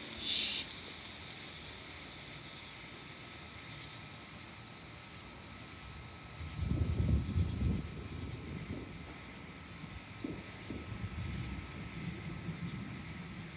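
Distant thunder rumbling for about a second roughly halfway through, with fainter rumbles a few seconds later, over a steady high-pitched chorus of night insects.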